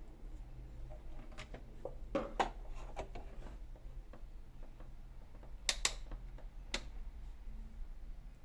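Scattered clicks and light knocks of small parts and tools being handled on a workbench, in two clusters, about a second in and again near six seconds, over a low steady hum.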